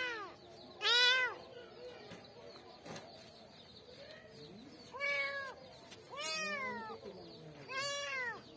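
Kitten meowing repeatedly, each meow short and rising then falling in pitch. Two come about a second apart, then after a pause of about four seconds three more follow, each over a second apart.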